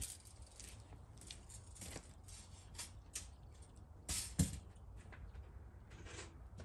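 Quiet outdoor ambience with scattered faint clicks and ticks, and one louder short tap about four seconds in.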